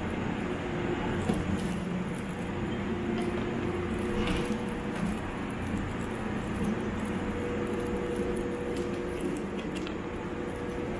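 Steady hum and hiss of a standing JR West Thunderbird limited express electric train, with a few faint held tones and scattered light clicks and taps.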